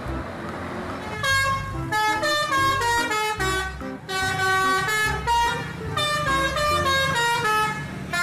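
Tour bus multi-tone "telolet" air horn playing a quick melody, its notes stepping up and down, starting about a second in and breaking off briefly twice. Before the melody, the bus passing on the road.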